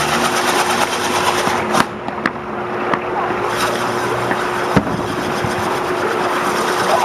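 Fireworks spraying sparks with a dense, steady crackle and hiss, and a few sharp pops about two and five seconds in.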